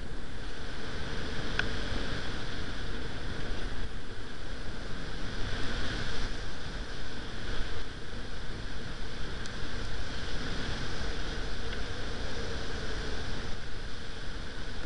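Steady rush of wind noise over the microphone, with a faint steady hum underneath.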